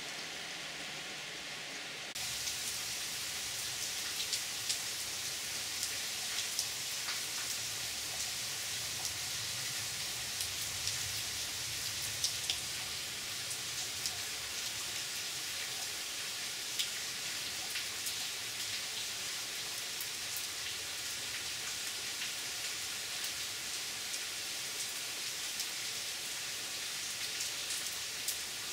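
Rain falling steadily into a pool of standing water: an even hiss dotted with many small, sharp drop splashes. About two seconds in, it turns louder and brighter.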